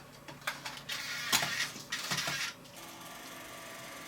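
A DVD being fed into the Mac mini G4's slot-loading optical drive: several clicks and a mechanical whirr as the drive draws the disc in, settling to a faint steady hum in the last second or so.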